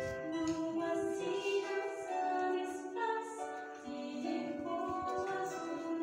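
Two concert harps playing a melody together, notes changing every half second to a second over held chords.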